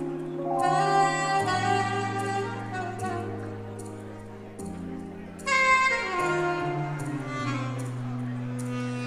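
Saxophone playing a slow melody of long held notes over a sustained low backing accompaniment, with a louder, brighter phrase coming in about five and a half seconds in.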